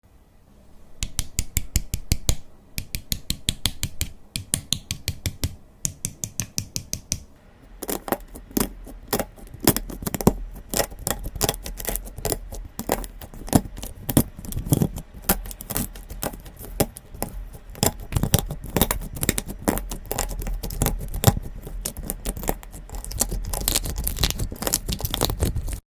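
Slime being squished and worked, making a run of sticky clicks and pops: spaced out for the first seven seconds or so, then a dense, continuous crackle.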